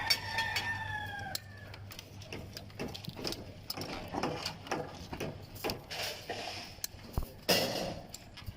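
A rooster crowing, its call falling slightly in pitch and ending about a second and a half in. Irregular light knocks and clicks run through the rest.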